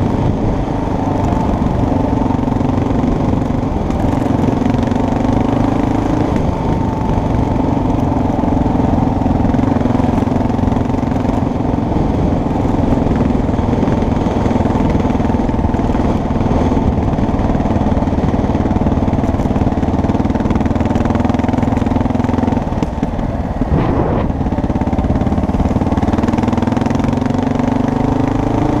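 Engine of a small off-road motor vehicle running steadily under way on a dirt forest track. The engine note drops briefly about two-thirds of the way through, as if easing off, then climbs back up near the end. A rough rumble of wind and ground noise runs underneath.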